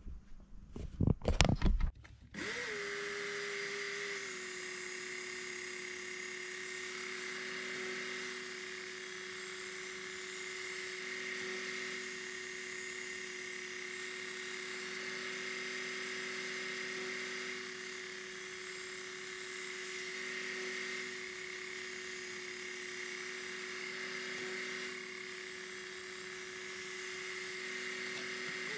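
A couple of handling knocks, then the Work Sharp Ken Onion Elite belt sharpener's motor starts about two seconds in and runs with a steady whine. Over it the grinding changes every few seconds as a kitchen knife is drawn along the abrasive belt in passes on each side, raising a burr on the edge. The motor cuts off right at the end.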